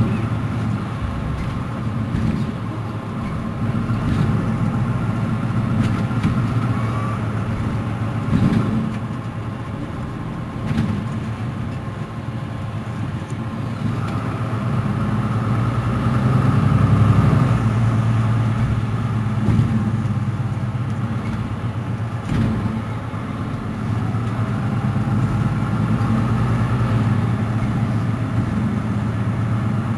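Mercedes-Benz Citaro C2 city bus engine running steadily, its drone swelling and easing several times and loudest about halfway through.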